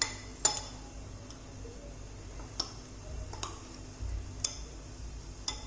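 A metal spoon clinking against a glass bowl while stirring cornflour-coated sweet corn kernels: about five sharp clicks, unevenly spaced.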